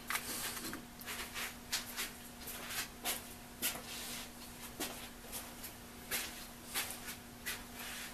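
Irregular light clicks and taps of small tools and parts being handled on a workbench, over a steady electrical hum.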